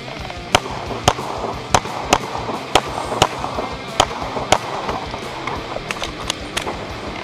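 A string of pistol shots, about a dozen sharp cracks fired roughly half a second apart with short pauses between groups, over background music with a steady beat.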